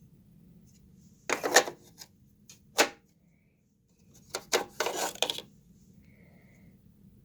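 Hard objects being handled: a run of knocks and clicks about a second in, a single sharp knock near three seconds, and another clattering run near the middle. Under them is a faint steady hum.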